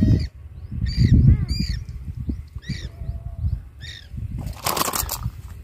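A bird calling over and over, short arched calls about once a second, over a low rumble of wind on the microphone. A loud burst of noise comes near the end.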